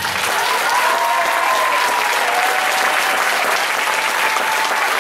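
Audience applauding at the end of the performance, steady dense clapping, with a few long high calls from the crowd held above it in the first half.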